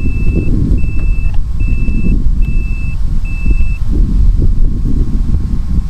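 Five evenly spaced, high-pitched electronic warning beeps, each about half a second long, from the FPV pilot's gear as the quad's battery runs low. The beeps stop about four seconds in. A steady low wind rumble on the microphone runs underneath.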